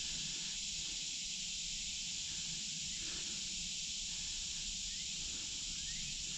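Steady high-pitched drone of insects in summer woods, an even hiss that does not change.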